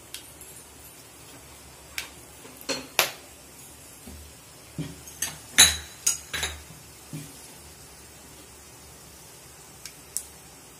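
Aluminium pan with cinnamon, cloves and peppercorns frying in a little oil, giving about a dozen sharp metallic clinks and pops at irregular intervals, most of them in the middle.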